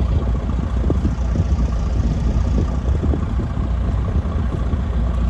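A vehicle engine idling steadily, a loud low rumble.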